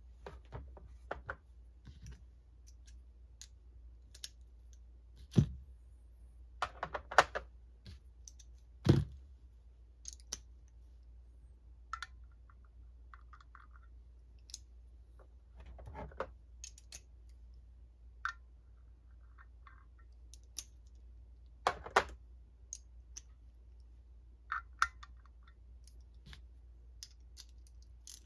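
Scattered clicks and metallic knocks of a screwdriver and small parts as the brush holder is unscrewed from a Ford alternator's case, with a few louder knocks every several seconds.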